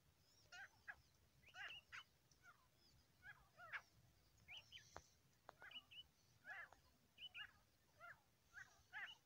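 Grey francolin calling faintly: a string of short, quick call notes, roughly two a second, with a sharp click about five seconds in.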